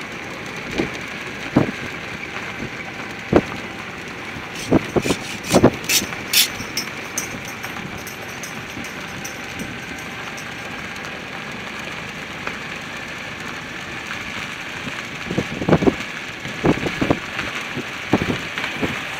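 A car's engine runs steadily while the car rolls slowly over a rough dirt lot, heard from inside the car. Scattered knocks and rattles come through, with a cluster of sharp clicks about a third of the way in and more knocks near the end.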